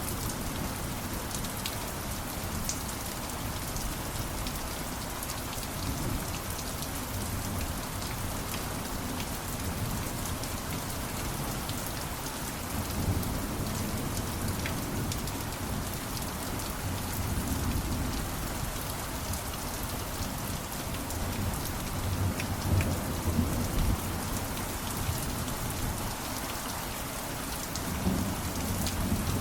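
Steady heavy rain, with scattered sharp drop ticks over an even hiss. Low rumbles of distant thunder swell up several times, most strongly in the second half.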